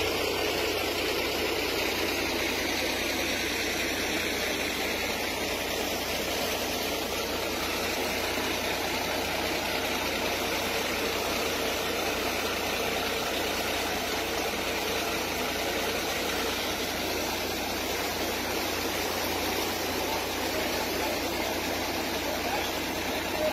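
Steady rushing of fast-flowing floodwater running through a residential street, with a constant low rumble underneath.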